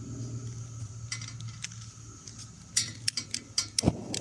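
Long-reach lighter clicking repeatedly at a propane ring burner, a quick run of sharp clicks in the second half; near the end the gas catches with a soft thump.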